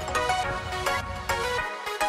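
Electronic background music with a steady beat; the bass drops out near the end.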